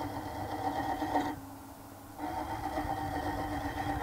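Hand file held against a steel bolt spinning in a wood lathe, a steady ringing, whining scrape. It breaks off for almost a second just after the first second, then starts again at the same pitch: two passes of the file.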